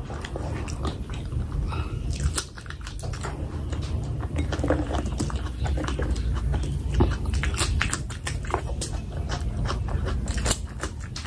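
Close-miked chewing of a full mouthful of rice and curry, with many short mouth clicks and smacks over a steady low hum.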